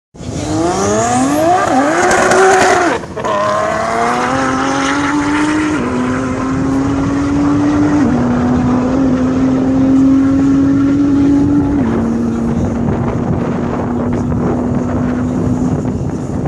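Nissan GT-R R35's twin-turbo V6 at full throttle, launching and accelerating hard. The engine note climbs steeply through quick upshifts in the first three seconds. It then rises more slowly between three further upshifts spaced a few seconds apart as the car pulls away.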